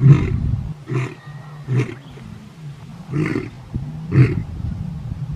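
A lion roaring: a series of about five deep roars roughly a second apart, the first the loudest.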